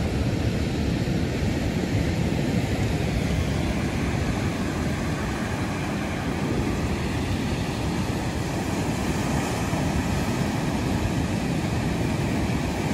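Steady roar of breaking sea surf mixed with wind rumbling on the microphone, an even low-heavy rush with no distinct events.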